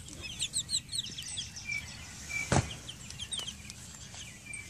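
Young chickens, about seven weeks old, peeping rapidly in short high chirps, several a second. A single sharp thump about halfway through is the loudest sound.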